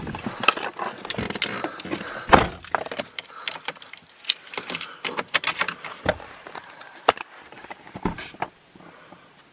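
Handling noise from a handheld camera moved about inside a car: fleece clothing rubbing on the microphone with irregular clicks, knocks and rattles, the loudest knock about two seconds in, dying away near the end.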